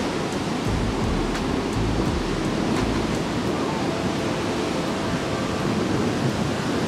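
Surf breaking and washing up the beach in a steady hiss, with strong wind buffeting the phone's microphone in uneven low rumbles during the first few seconds.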